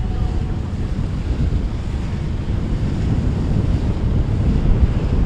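Wind buffeting the microphone over the steady wash of waves and surf.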